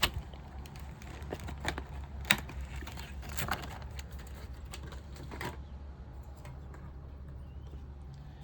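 Stiff plastic blister pack crackling and clicking as it is pried open, an irregular run of sharp clicks that stops about five and a half seconds in.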